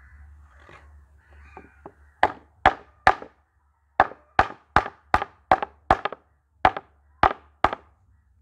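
Hammer striking a cricket bat's handle to drive the glued, wood-filled joint home into the blade: a few light taps, then about a dozen sharp knocks in quick, slightly uneven succession starting about two seconds in.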